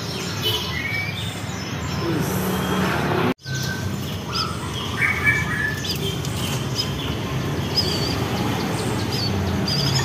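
Caged white-rumped shamas (murai batu) and other songbirds chirping and whistling, many short notes overlapping, over a steady low hum. The sound cuts out for a moment about three seconds in.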